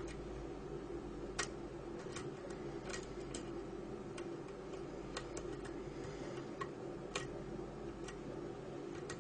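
Light, irregular metallic clicks of a half-diamond pick working the telescopic pins of a Mul-T-Lock dimple cylinder under tension. The pins are being lifted one at a time as they bind. The sharpest click comes about a second and a half in, over a steady low hum.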